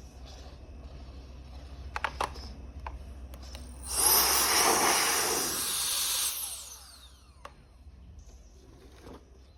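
Small high-speed electric turbo fan switched on briefly: a loud rush of air with a high whine that rises as it spins up about four seconds in, runs for a couple of seconds, then falls away as it winds down. A few sharp clicks come about two seconds in.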